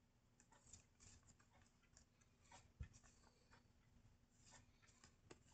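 Faint rustling and light clicks of small paper timetable cards being handled and shuffled in the hands, with one soft low bump a little before the middle.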